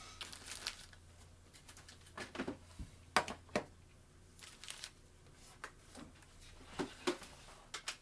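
Packaging being handled: rustling and crinkling with scattered clicks and knocks, the sharpest click about three seconds in.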